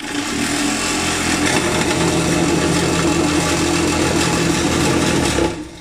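Vibrating table running, its motor with eccentric weights shaking the steel platform and the plastic cylinder mold to compact a layer of fresh concrete. A loud steady hum with rattle starts at once and stops near the end.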